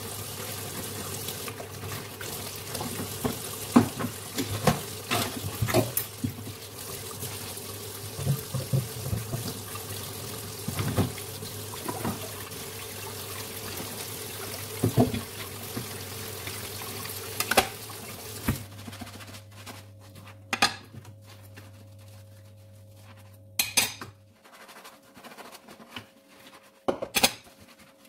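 Kitchen tap running into a sink during hand dishwashing, with scattered clinks and knocks of a metal strainer and utensils. The running water stops about two-thirds of the way through, leaving a few separate clacks of utensils being handled.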